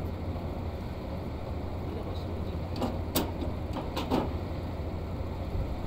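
A handful of sharp metal clicks and knocks from work on a rooftop HVAC unit's blower wheel and bearing assembly, bunched about three to four seconds in, over a steady low hum.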